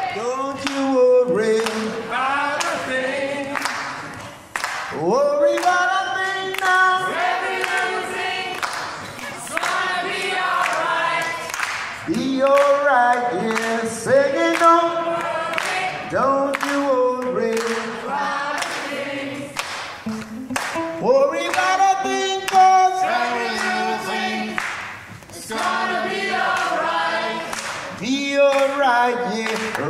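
Several voices singing a song together in chorus, in repeated phrases, over a steady beat of sharp percussive hits.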